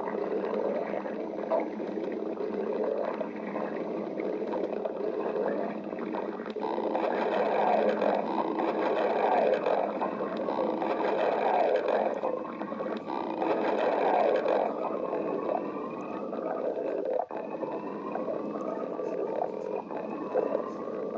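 Stomach growling and gurgling without a break, louder for a stretch in the middle, with long, slowly rising growls in the later part.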